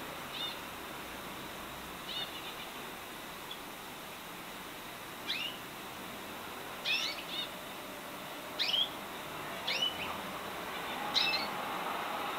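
Pet birds chirping: about seven short, sharp calls that sweep down in pitch, some in quick pairs, spaced a second or more apart over a steady background hiss.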